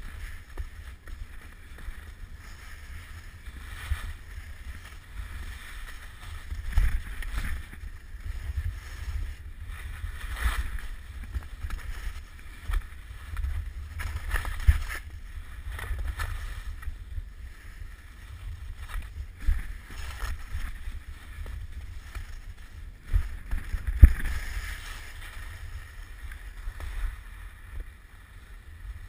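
Skiing at speed on packed snow, heard through a helmet-mounted GoPro Hero 2: a steady low wind rumble on the microphone with the skis hissing and scraping over the snow. A few sharp knocks from bumps come through, the loudest late on.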